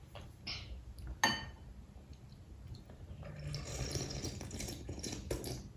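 A small child slurping soup loudly off a metal spoon, in one long slurp from about three seconds in. A spoon clinks against the bowl about a second in.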